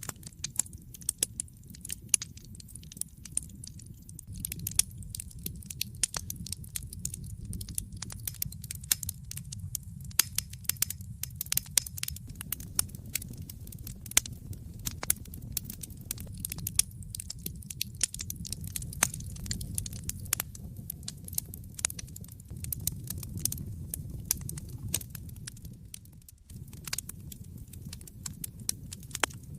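Wood fire crackling in a fireplace: frequent irregular sharp pops and snaps over a low steady rumble of the flames, which drops away for a moment a little before the end.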